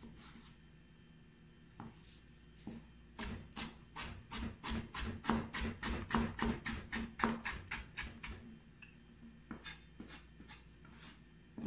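Chef's knife slicing chayote into thin strips, the blade knocking on a plastic cutting board in a quick even run of about four cuts a second, with a few single cuts before and near the end.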